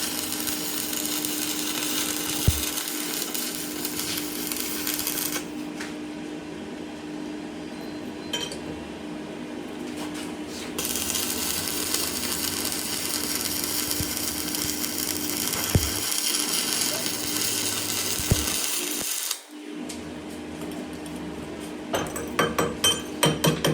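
A power tool or machine running steadily in a metal workshop, a constant hum under a hiss that drops away and comes back twice, with a few sharp clicks. Near the end a run of quick metallic taps, about five a second.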